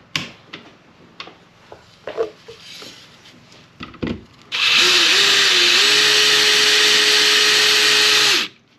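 Cordless drill driving long screws through a brush wall plate into a wall box: a few light clicks and taps, then about halfway through the drill runs steadily for about four seconds at an even pitch and stops.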